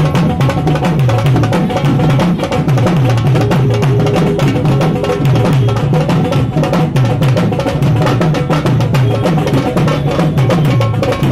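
Loud Indian folk dance music driven by drums: a dense run of quick strokes over a low drum pattern that repeats and bends in pitch.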